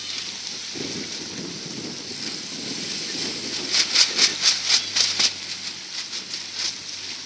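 Wind and water noise, with a run of sharp rhythmic rattling, about four strokes a second, lasting about a second and a half midway, then fainter strokes.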